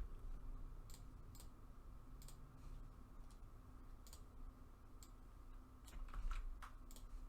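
Faint, scattered clicking of computer keyboard keys, a few clicks every second, bunched more closely near the end.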